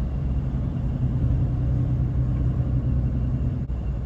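Steady low drone of a car's engine and tyres heard inside the moving vehicle's cabin, with a held low hum.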